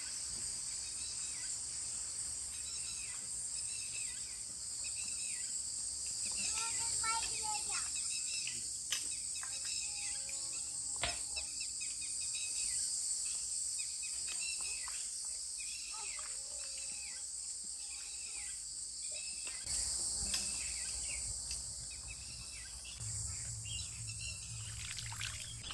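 Steady high-pitched insect drone with birds chirping over it, and a few light knocks.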